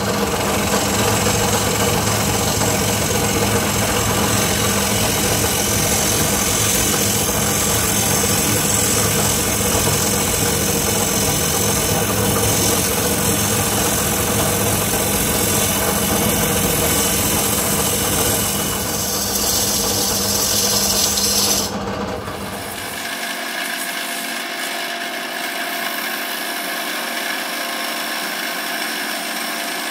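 Wood lathe running with a turning tool cutting a spinning square hardwood blank, a steady hum under a rough cutting noise. About 22 seconds in the sound changes abruptly and the deep hum drops away.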